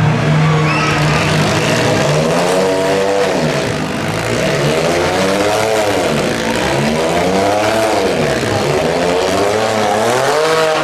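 Demolition derby compact car engines running hard: one holds steady for about the first two seconds, then an engine revs up and down about four times over a din of other engines.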